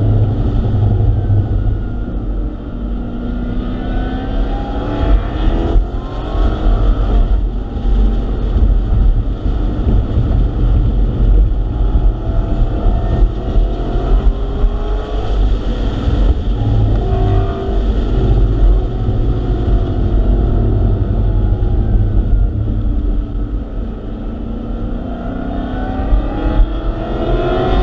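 Dodge Hellcat Redeye's supercharged 6.2-litre HEMI V8 under hard driving, heard from inside the cabin, its pitch sweeping up and down several times as it accelerates and slows for corners over a steady low rumble.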